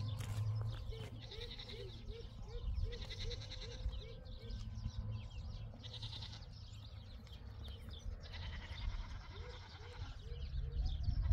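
A flock of small livestock bleating, several calls following one another every second or two, over a steady low rumble.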